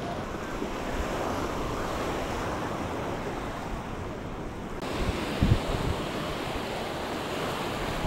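Mediterranean surf washing onto a sandy beach, a steady wash of waves, with wind buffeting the microphone in a few strong gusts a little past halfway.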